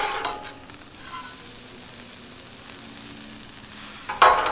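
Thin-sliced sirloin sizzling steadily on a Blackstone flat-top griddle, with a short louder scrape right at the start and another near the end.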